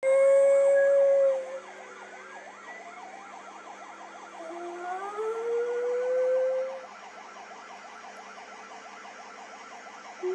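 West Highland white terrier howling at emergency-vehicle sirens from a TV: one held howl at the start that breaks off after about a second and a half, then a second howl that rises in pitch a few seconds later. The siren's fast, repeating wail runs quieter underneath.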